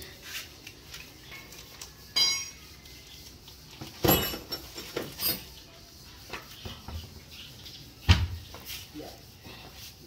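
Metal tools and a wheel being handled on a tiled floor during a tyre change. There is a ringing metallic clink about two seconds in, sharp knocks around four and five seconds, and a heavy thump about eight seconds in.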